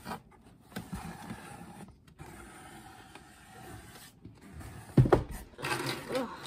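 Cardboard shipping box being handled: scraping and rustling of the cardboard with scattered knocks, and one loud thump about five seconds in.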